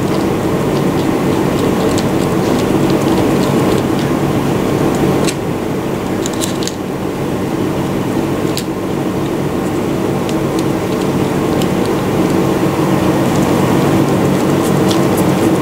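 A steady mechanical hum, with scattered light clicks from a screwdriver turning the screw of a cross-connection slider on a plastic CT terminal block.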